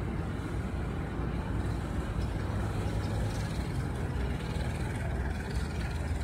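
Indonesian Railways passenger train coaches rolling past on the station tracks, a steady low rumble of wheels on rail.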